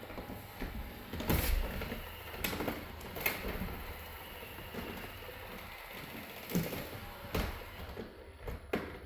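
iRobot Roomba robot vacuum driving about and bumping into obstacles, with about six sharp knocks and mechanical creaks spread across the few seconds. It is not vacuuming but searching for its charging dock, which it cannot find.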